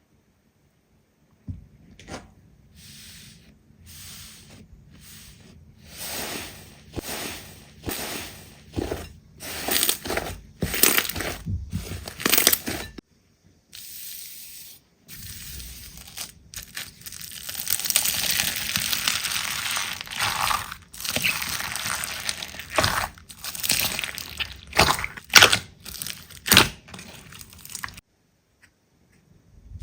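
Slime being pressed and squeezed by hand: short crinkly presses about once a second, then a longer stretch of dense crackling in the second half, with brief silent gaps between.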